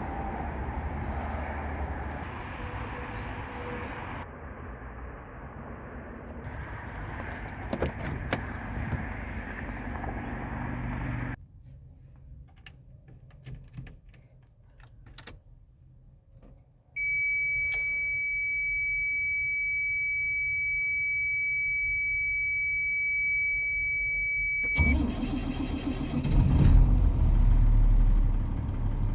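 1999 Chevy C7500 truck's engine being cold-started with difficulty. The starter cranks for about ten seconds without the engine catching, then stops. A steady high warning buzzer sounds for about eight seconds. The engine is cranked again near the end and catches and runs.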